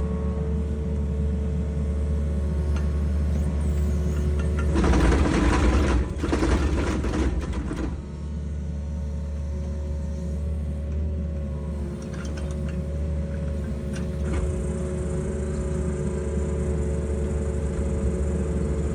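Excavator's diesel engine running under load with a steady hydraulic whine as its auger attachment drills a pier hole down into mudstone. About five seconds in, the sound gets louder and rougher for about three seconds.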